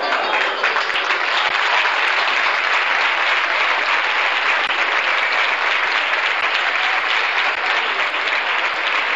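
Audience applauding, a dense steady clapping that breaks out as the singing stops.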